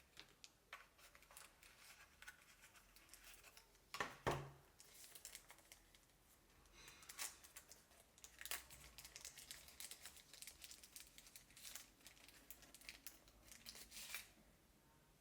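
Product packaging being handled and opened: irregular crinkling and rustling, with a louder knock about four seconds in.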